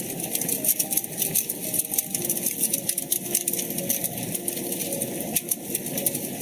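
Wood fire crackling in a fireplace: dense, irregular sharp pops and snaps over a steady low hiss.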